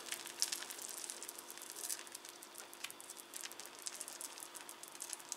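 Faint, irregular crackling sizzle of a tortilla frying in a hot pan, the pan still hot after the gas has been turned off.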